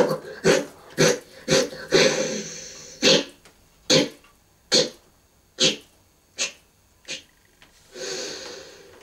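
A person's voice making a series of short, sharp coughs or huffs. They come about twice a second at first, then slow down and grow fainter, with a longer breathy hiss about two seconds in and again near the end.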